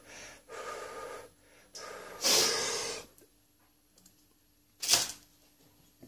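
A man breathing heavily through the mouth, psyching himself up with deep breaths before holding his breath to eat a hot chili. There are several long breaths, the loudest about two and a half seconds in, then a pause and one short, sharp breath near five seconds.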